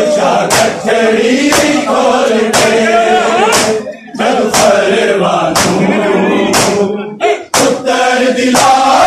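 A group of men chanting a noha in unison while beating their chests with open palms (matam), the slaps landing together about once a second. The chanting breaks off briefly twice, about four and seven seconds in, while the slaps keep time.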